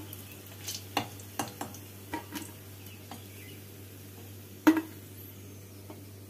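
A metal spatula clinks and scrapes against a metal karai as fried fritters are scooped out of the hot oil. There is a series of sharp knocks, the loudest about four and a half seconds in, over a low steady hum.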